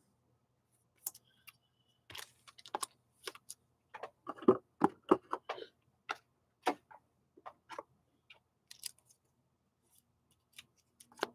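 Trading cards being handled and set down on a desk: scattered quiet clicks and taps, several close together in the middle.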